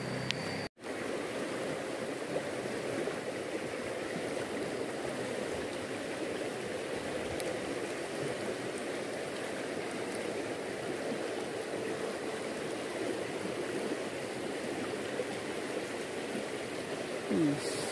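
Fast-flowing river current rushing steadily, with the sound cutting out for a moment just under a second in.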